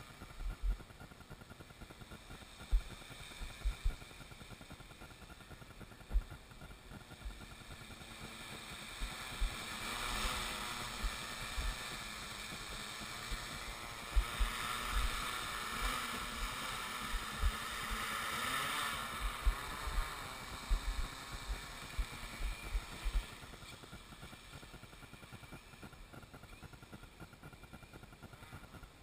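Carbon Core Y6 hexacopter, its six motors set in coaxial pairs on three arms, buzzing in flight. The propeller whine grows louder about nine seconds in as it comes close and fades again after about twenty seconds, with low thumps of air buffeting the microphone throughout.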